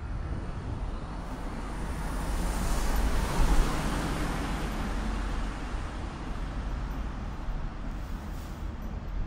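Street traffic: a road vehicle passes close by, its tyre and engine noise swelling to a peak about three seconds in and then fading back into the general city traffic noise.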